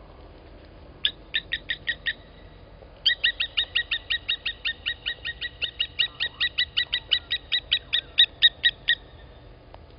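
Blacksmith lapwing giving its sharp, metallic 'tink' alarm calls. A short burst of about six notes comes a second in, then after a pause a fast run of about six notes a second lasts some six seconds: the alarm of a lapwing defending its nest.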